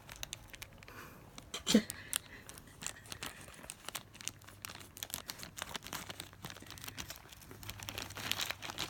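Plastic toy bag being cut open with scissors and crinkled: a run of irregular snips, crackles and rustles, with one louder moment a little under two seconds in.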